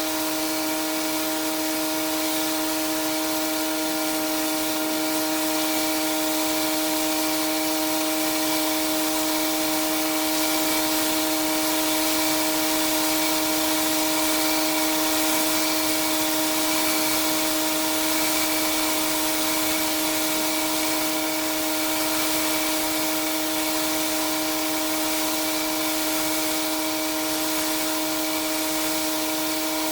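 Pressure washer running steadily, a constant machine hum over the hiss of the high-pressure water spray, with no change in pitch or level.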